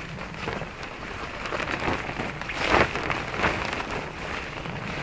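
A heavy waterproof tarp rustling and crackling as it is shaken out and lifted by hand, in several uneven bursts, the loudest just under three seconds in.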